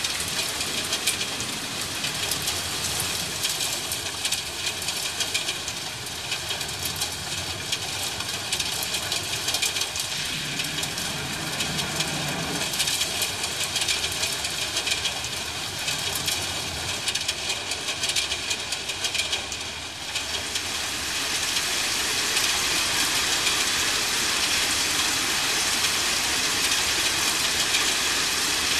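Steady rain with low rumbles of distant thunder, one near the start and a longer one about ten seconds in. About twenty seconds in the rain turns into a louder, even hiss, like a heavier downpour.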